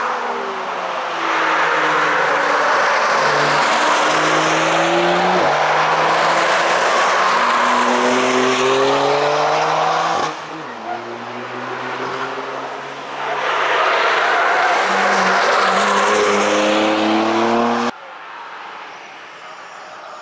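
High-performance test cars driven hard on a racetrack, passing one after another: engine notes climbing and dropping through gear changes over a steady spread of engine and tyre noise. There are two loud passes, and each cuts off abruptly, about ten seconds in and again near the end.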